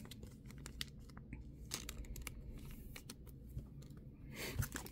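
Faint clicks and rustles of trading cards being handled, slipped into a clear plastic sleeve and laid on a table, with a louder rustle near the end.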